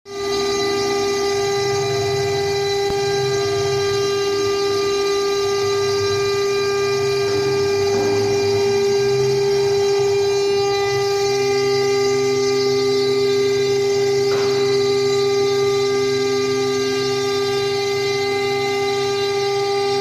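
3 kW water-cooled spindle of a CNC router running at speed: a loud, steady whine with several higher tones above it. Lower motor tones under it change about 11 seconds in as the machine moves over a wooden board.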